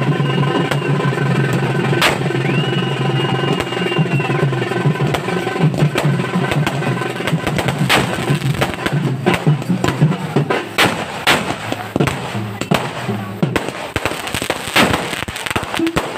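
Aerial fireworks bursting overhead in quick, irregular cracks and crackles, growing denser about five seconds in. Festival music plays under them with long held, sliding high notes, and it stops about thirteen seconds in.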